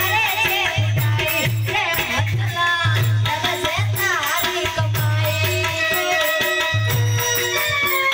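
Amplified Gujarati devotional folk song: a woman singing an ornamented, wavering melody into a microphone over electronic keyboard, with a steady pulsing bass beat and rattling percussion.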